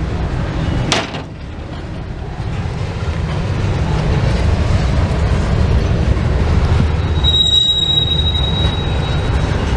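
A passing train rumbling steadily, with a high, steady wheel squeal from about seven seconds in. A sharp click about a second in.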